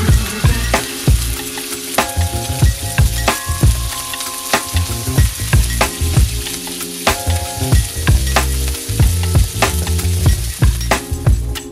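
Shrimp sizzling and frying in olive oil in a cast iron skillet, a steady crackling hiss. Background music plays underneath.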